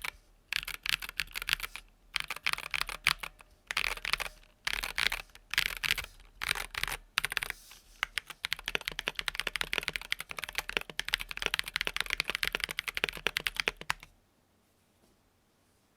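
Typing on a KBD67 R3 mechanical keyboard with stock, unlubed Durock Sunflower POM T1 67 g tactile switches and a silicone mute, the key clacks coming in short bursts and then in a fast unbroken run that stops about two seconds before the end. The uploader hears a slight rattle and spring ping in these switches when they are unlubed.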